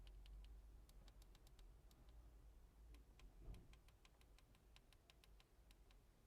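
Faint, quick clicks of a smartphone's side buttons pressed over and over, scattered at first and then in a fast run of about ten. The presses step through the Android recovery menu.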